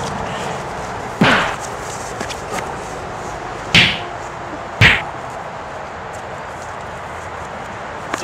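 Sharp whip-like swishes in a fight scene, three of them about a second apart in the first five seconds and a louder one at the very end, over a steady hiss.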